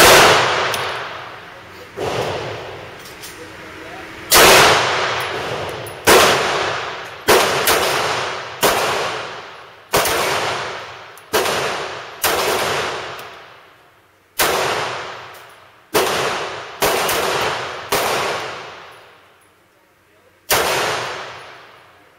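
A handgun fired at a slow, uneven pace, about fourteen shots one to two seconds apart, each crack ringing out and dying away in the echo of an indoor range.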